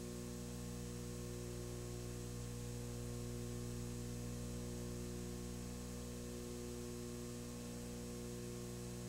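Steady electrical mains hum with its evenly spaced overtones, over a faint background hiss.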